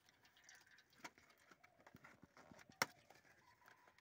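Faint handling sounds of cardboard boxes being opened and a new filter taken out: scattered light taps and scrapes, with one sharp click about three quarters of the way through.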